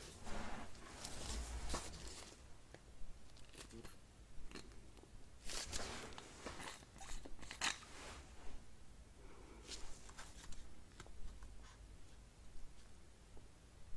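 Scattered rustles, crinkles and clicks of a small object being handled close to the microphone.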